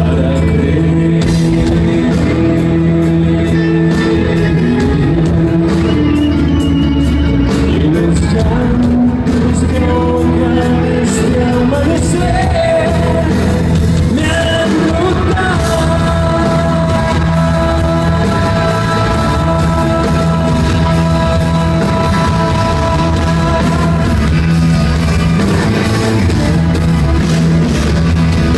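Live rock band playing, with a man singing lead over a strummed acoustic guitar, bass and drums.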